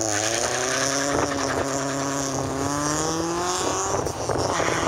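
A car engine revving hard as the car launches from a standstill. Its pitch climbs steadily for about three and a half seconds, then breaks at a gear change and starts climbing again.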